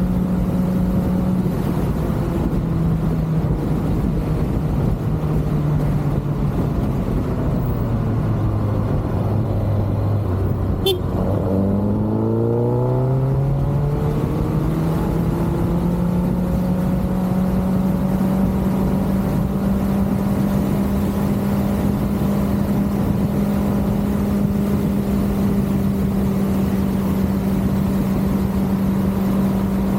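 Kawasaki ZX-6R's inline-four engine under way. Its pitch drops in steps as the bike slows over the first ten seconds or so, then, after a sharp click about eleven seconds in, it rises smoothly as the bike accelerates and settles into a steady cruise.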